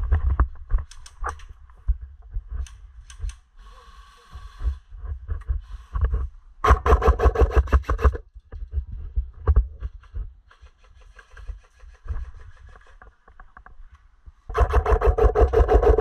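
Airsoft electric rifle firing two full-auto bursts, each a rapid rattle of about a dozen shots a second over a gearbox whine. The first bursts about seven seconds in and lasts over a second; the second starts near the end. Fainter bursts and scattered clicks come in between.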